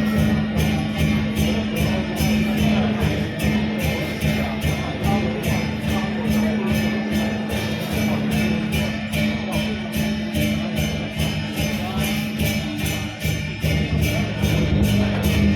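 Music with a steady beat of bright, jingling strikes, about three a second, over a sustained low tone.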